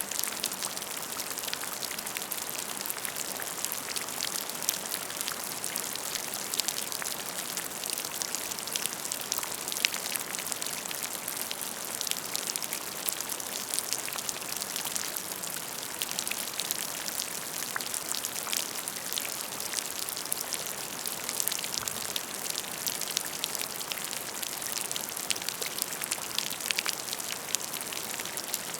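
Steady rain, a continuous hiss dense with many small, distinct drop impacts.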